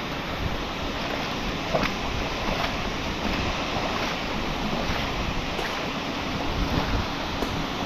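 Steady rush of flowing creek water below a dam, with a few faint ticks mixed in.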